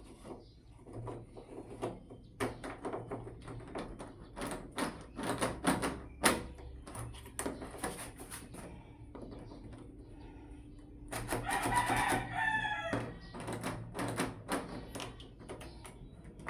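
A rooster crows once, loud and drawn out, about eleven seconds in. Around it come many sharp clicks and knocks of door-knob and lock hardware being handled.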